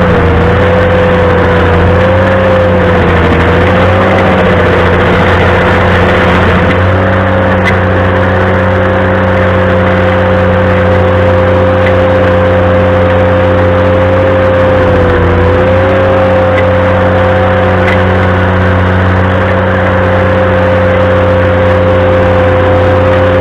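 Ventrac compact tractor running a stump grinder attachment at steady high speed, with a loud steady whine over the engine hum that wavers slightly a few times.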